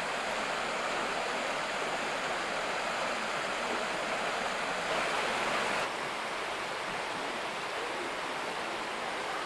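Rushing water of a mountain stream tumbling through a gorge: a steady, even rush, briefly a little louder about five seconds in.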